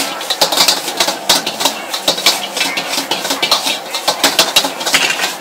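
Metal wok ladle clanking and scraping against a wok in quick, irregular strokes as egg fried noodles are stir-fried, over the steady rush of a high-flame wok burner.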